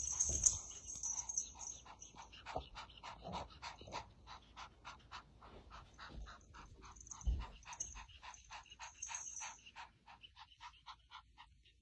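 Kitten panting with its mouth open, quick short breaths about five a second, out of breath from play. A soft low thump comes about seven seconds in.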